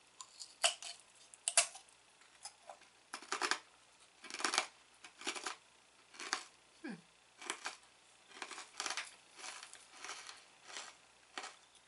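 Crunching as a thin, crisp cinnamon biscuit with a fortune-cookie texture is bitten and chewed: a string of sharp crunches, roughly one or two a second.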